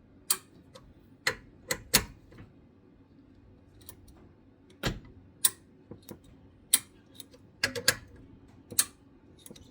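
A dozen or so sharp, irregularly spaced metallic clicks and taps from a wrench working new ARP rod bolts on a connecting rod held in a vise. This is the first pass of tightening the bolts to 20 foot-pounds.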